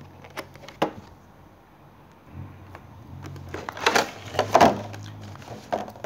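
Clear plastic sleeve and cardboard box being handled and slid apart. A few sharp clicks come first, then, after a lull, a cluster of louder rustles and clicks about four to five seconds in.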